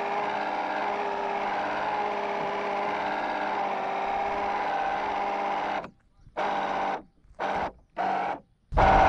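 An RC boat's small electric motor whines steadily. Near the end it cuts out and comes back on four times in quick succession, as the throttle is let off and pushed again while the boat fights a hooked fish.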